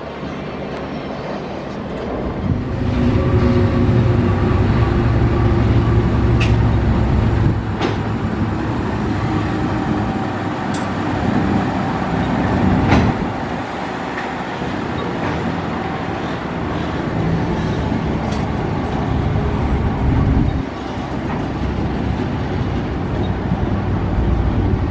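Container freight train hauled by an Aurizon diesel locomotive, its engine drone steady as the wagons roll by, with a few sharp clicks from the wheels and couplings.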